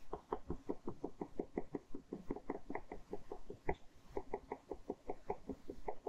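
Ballpoint pen scratching across paper in quick, short hatching strokes, about five a second.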